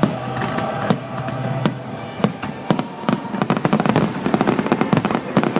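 Fireworks display: a few separate sharp bangs of bursting shells, then, a little past halfway, a dense rapid crackling of many small bursts.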